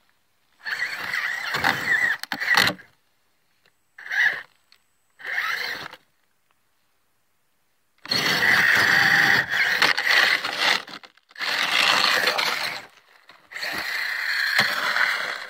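Barrage Gen2 mini RC crawler's electric motor and gears whining as it is driven through snow, in six throttle bursts of under a second to about three seconds, each cutting off sharply.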